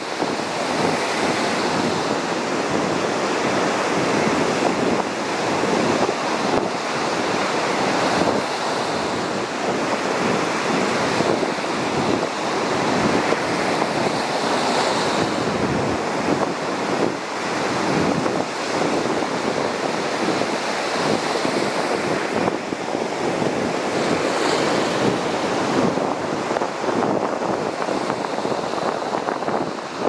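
Ocean surf breaking and washing up a sandy beach in a steady, slowly swelling rush, with wind buffeting the microphone.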